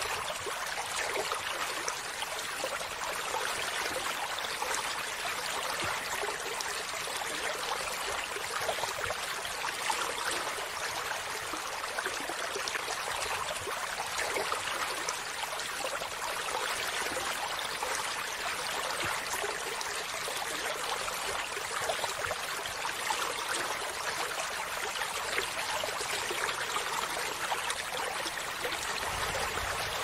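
Shallow rocky stream flowing over stones: a steady trickling and splashing of water, mostly high and hissy with little low rumble.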